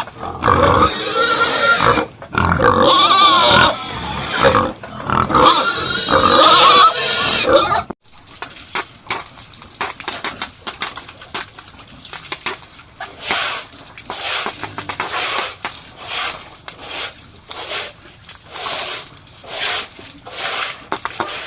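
Pigs squealing loudly for the first eight seconds or so, the calls wavering in pitch. After an abrupt break, a much quieter series of short noisy sounds follows, roughly one or two a second.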